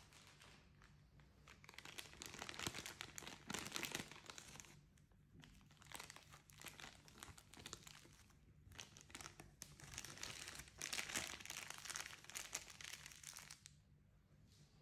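Plastic packaging being handled and crinkled, in two spells of dense crackling a few seconds long each.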